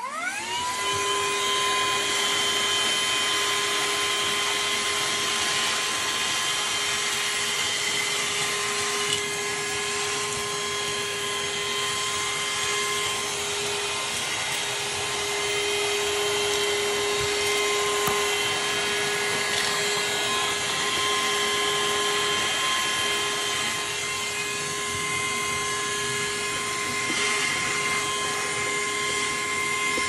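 Shark cordless handheld vacuum switching on, its motor spinning up with a rising whine within the first second, then running steadily with a high whine over a rush of suction air as it is worked over a doormat.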